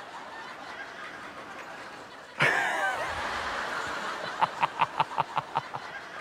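Quiet background hiss, then about two and a half seconds in laughter breaks out, building into a run of quick, rhythmic 'ha-ha-ha' laughs.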